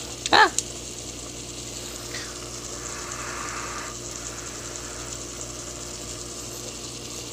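Sliced mushrooms frying quietly in an enamelled cast-iron pot, a faint sizzle under a steady low hum.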